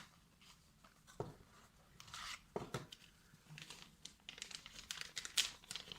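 Packaging crinkling and tearing as a small multitool is unwrapped, with scattered light clicks and taps of handling; the loudest rustle comes near the end.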